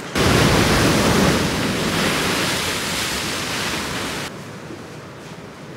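Orange chicken sauce sizzling and bubbling hard in a hot pan while a wooden spatula stirs it. The sizzle cuts off abruptly about four seconds in, leaving quieter room sound.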